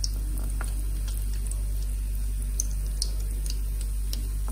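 Breaded potato cheese balls frying in hot oil on a low flame: scattered sharp crackles and pops of the oil over a steady low hum.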